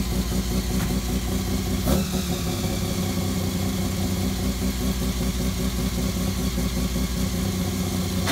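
Mazda 12A two-rotor rotary engine, freshly installed in a Mazda Capella, idling steadily with a pulsing low end. There is one short click about two seconds in.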